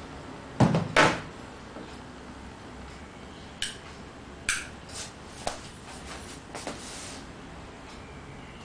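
Handling noise: two heavy knocks less than half a second apart, then a scattered run of lighter clicks and taps, a few with a brief metallic ring.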